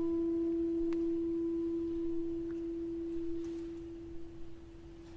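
A chamber ensemble's held note: a single pure, steady tone in the middle register that fades away over the last couple of seconds. A few faint clicks are heard during it.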